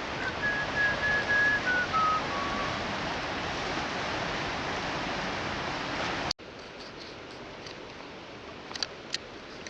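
Steady rush of river water, with a short whistled run of notes stepping down in pitch in the first few seconds. About six seconds in the sound cuts off abruptly to a quieter background with a few faint clicks.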